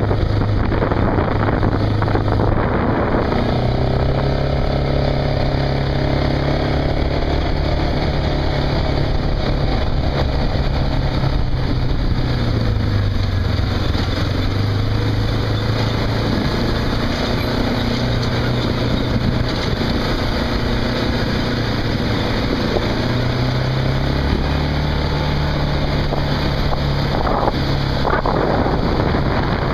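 Case IH Quadtrac tractor's turbocharged diesel engine running steadily under load. Its engine note sags in pitch about halfway through and shifts again near the end as the load changes.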